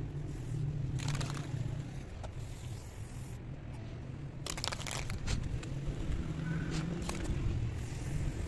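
Aerosol spray-paint can hissing in several short bursts as black lines are sprayed onto a concrete wall, over a steady low rumble.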